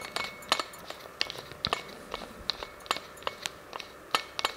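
Small, irregular metal clicks and taps as a monitor-mount plate is handled and turned on its fitting.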